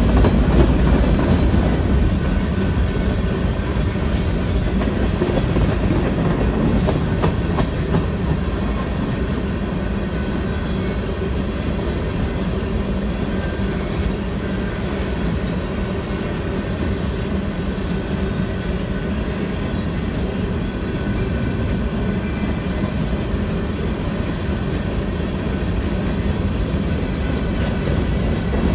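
Railroad cars rolling past on the track, a steady rumble with scattered clicks of the wheels over the rails in the first several seconds.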